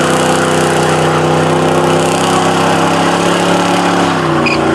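A muscle car's V8 engine held at steady high revs during a burnout; the revs drop off near the end.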